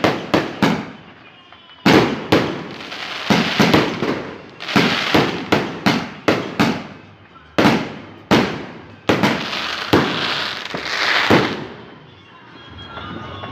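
Fireworks and firecrackers going off in rapid, irregular succession: many sharp bangs with echoing tails and crackle. They thin out about twelve seconds in.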